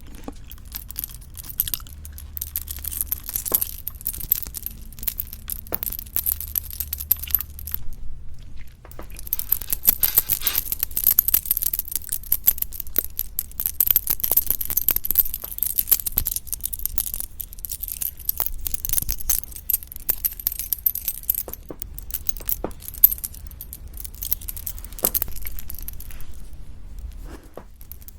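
Close-miked eating sounds: crisp crunching and wet, sticky mouth clicks from chewing lettuce-wrapped raw fish bibimbap and boneless chicken feet. The chewing is densest from about a third of the way in until about three quarters through.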